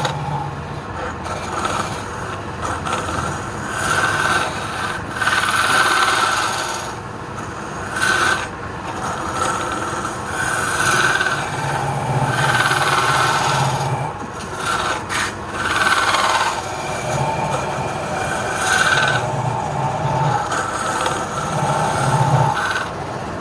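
Wood being worked on a lathe: a tool scraping against the spinning workpiece, swelling and fading every second or two over a low motor hum.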